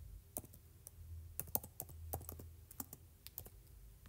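Typing on a keyboard: about a dozen faint, unevenly spaced key clicks as a short name is entered.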